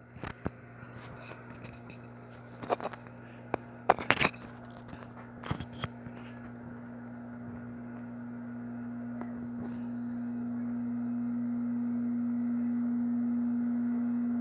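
A steady low hum that grows louder through the second half, with a handful of short clicks and knocks in the first half.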